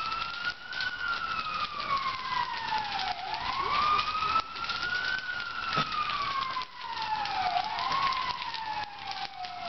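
Emergency vehicle siren wailing, its pitch sliding slowly up and down over and over, each rise and fall lasting a few seconds. Under it, the crackle of the burning wooden shed.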